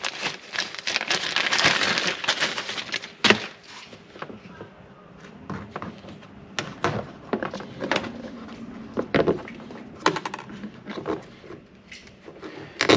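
Hands working with small plastic parts: rustling and crinkling, one sharp snap about three seconds in, then scattered light clicks and taps.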